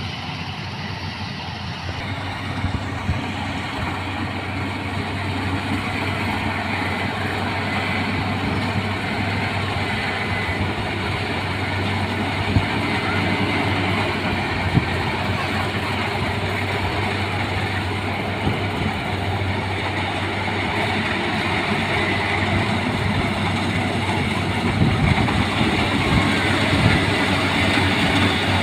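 Rice combine harvester running steadily: a continuous engine and machinery drone with a steady low hum, growing gradually louder, with a few brief sharp ticks.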